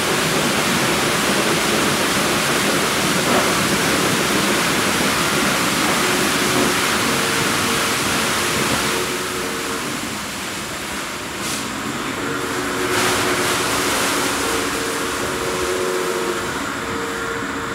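Christ Genius rollover car-wash gantry running over a car: rotating brushes and water spray hiss steadily, with a steady hum from the gantry's motors. The spray noise eases a little about ten seconds in.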